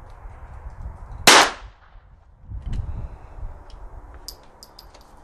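A single shot from a .22 rimfire Stevens New Model No. 40 pocket rifle, one sharp crack about a second in. Near the end come several light metallic clicks as the single-shot tip-up action is opened to reload.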